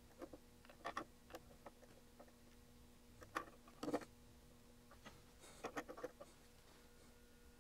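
Faint, scattered clicks and taps of a digital caliper being handled, its metal jaws set against an instrument's front panel and BNC connector, in three small clusters, over a faint steady hum.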